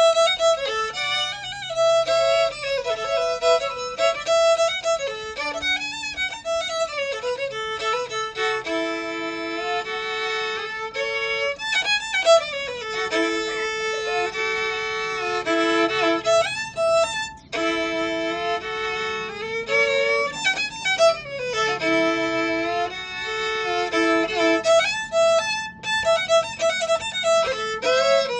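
Solo violin playing a melody, one note at a time, with slides up and down between some notes.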